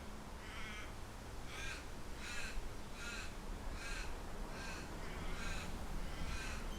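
A bird calling over and over, about eight short calls in a steady series, one every two-thirds of a second or so, over a low rumble of wind.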